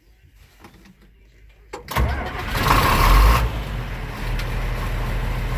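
4630 tractor's six-cylinder diesel engine starting: after a couple of quiet seconds it cranks only briefly, catches about two seconds in, runs up loudest for a moment and settles to a steady idle.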